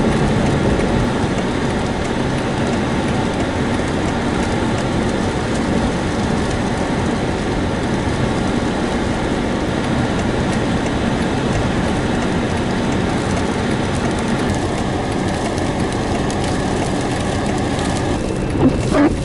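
Steady road noise heard inside a moving car: tyres and engine running, with a brief louder swell near the end.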